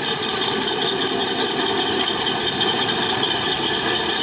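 Recorded Tiger I tank engine sound idling steadily, played back by an mp3 sound unit through the small speaker of a 1:16 Heng Long Tiger I RC tank.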